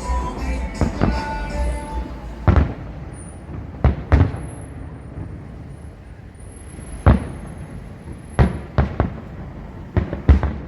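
Fireworks salute going off: single sharp bangs at irregular intervals, with a quick cluster of bangs near the end. Music with sustained tones fades out in the first couple of seconds.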